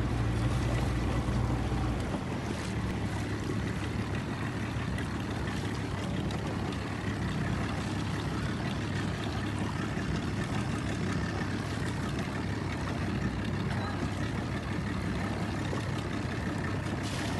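A small boat's motor running steadily at slow harbour speed, with water noise around the hull; its low hum drops a little about two seconds in.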